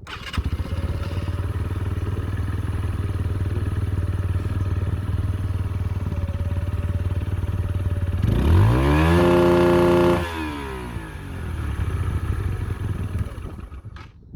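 KSR TW 125 supermoto engine through an Arrow aftermarket silencer with its dB killer fitted: idling, then about eight seconds in snapped up to the rev limiter and held there for about two seconds before dropping back to idle. This is the rev-limiter sound test, measured at up to 102.7 dB.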